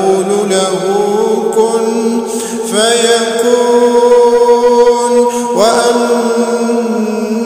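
A man chanting Quran verses in the melodic recitation style, holding long drawn-out notes with slow pitch turns. New phrases begin with a rising glide about three seconds in and again near six seconds.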